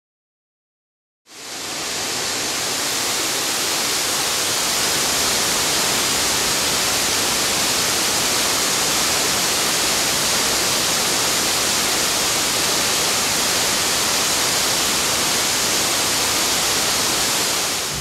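Steady, even rush of falling water from a waterfall, fading in about a second in and holding level.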